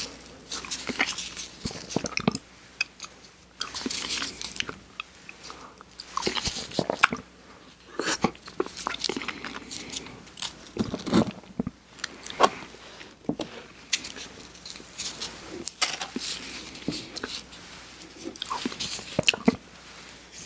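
Close-miked mouth sounds of eating vanilla soft-serve ice cream from a cone: wet licking and biting with irregular smacks and clicks.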